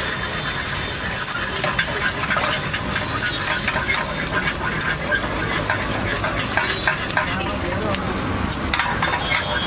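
Eggs sizzling as they fry in a metal pan over a gas burner, with a metal spatula clicking and scraping against the pan as they are stirred and spread.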